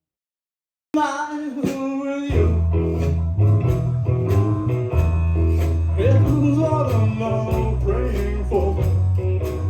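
Music beginning after about a second of silence: a guitar line first, then bass and drums come in with a steady beat about two seconds in.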